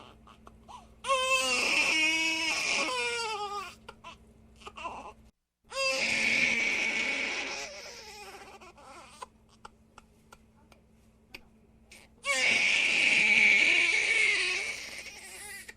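Baby crying in three long, loud wails, each wavering in pitch, with short whimpers and catches of breath in the pauses between.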